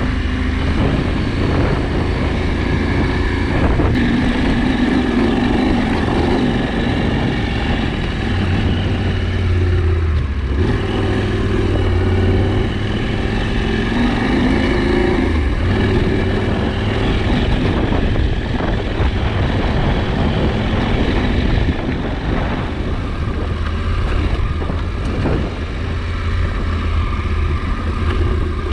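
KTM 790 Adventure motorcycle's parallel-twin engine running steadily as the bike is ridden.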